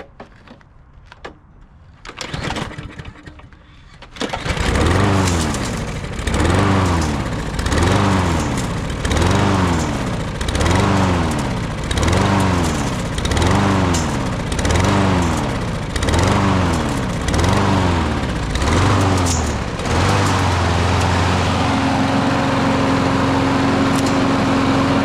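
Husqvarna lawn mower's small engine pull-started on a newly fitted carburetor, catching about four seconds in. It then surges up and down in speed about once a second before settling into a steady run near the end.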